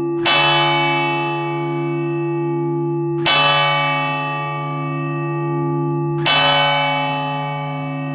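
Large 3,160-pound church bell struck three times by its external hammer, about three seconds apart. Each strike rings on in a long, loud hum of many tones that is still sounding when the next blow lands.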